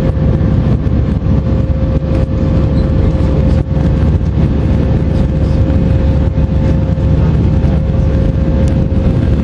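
Airbus A319 cabin noise in the climb after take-off, heard inside the cabin: the CFM56 jet engines' steady, loud low roar with air rushing past, and a steady mid-pitched hum running through it.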